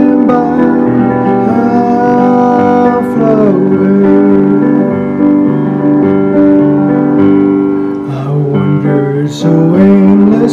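Gospel music: a man singing long held notes over instrumental accompaniment.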